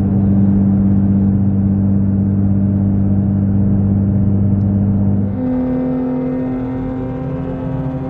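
Car engine and road noise at a steady motorway cruise, heard inside the cabin as an even low drone. About five seconds in it gives way to a different steady, higher-pitched drone with many overtones.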